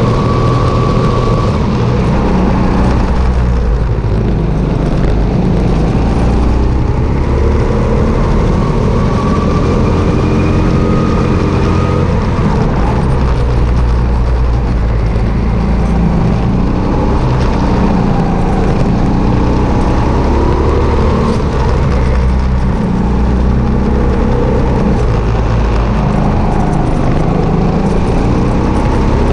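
Sodikart RT8 rental go-kart's four-stroke petrol engine, heard close up from a camera mounted on the kart, revving up and dropping back again and again as the kart laps the track.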